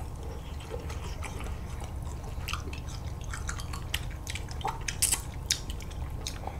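Close-miked wet mouth sounds of people eating red bean ice bars: scattered soft lip smacks, sucks and clicks over a steady low hum.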